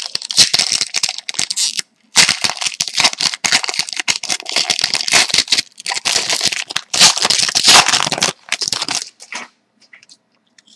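Foil wrapper of a hockey card pack being crinkled and torn open by hand, a dense crackling that breaks briefly about two seconds in and stops near the end.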